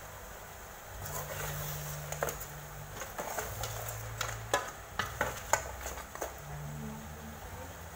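Metal ladle stirring braising pork trotters in an aluminium pot, scraping and clinking against the pot several times through the middle, with the loudest knocks between about four and five and a half seconds in. Under it, the braising liquid bubbles and a steady low hum runs throughout.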